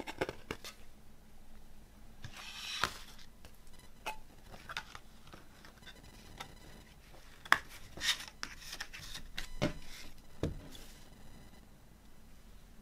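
A CD and its cardboard digipak being handled: the disc pressed into the tray and the card panels folded shut, giving sharp clicks and taps with short swishes of card sliding and rubbing. The loudest click comes about halfway through.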